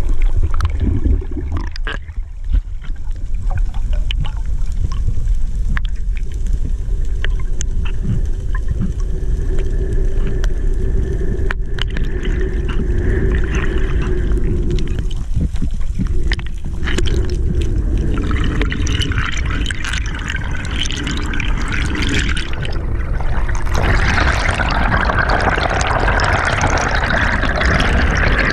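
Underwater sound picked up through a GoPro's waterproof housing: a low rumble of water moving past the housing with scattered clicks and crackles. In the last few seconds it swells into a louder rushing, bubbling hiss as the diver rises toward the surface.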